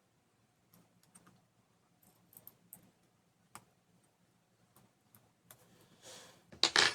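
Faint, scattered clicks and taps of small laptop parts and screws being handled during reassembly, with a short, louder clatter near the end.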